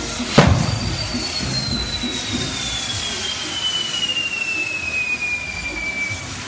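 Castillo fireworks tower burning with a steady hiss: one sharp bang about half a second in, then a long whistle that falls slowly in pitch for about five seconds as the wheels spin.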